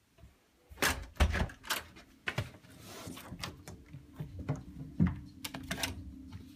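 A hotel room door and its fittings being handled: a string of sharp clicks and knocks starting about a second in, with a steady low hum underneath.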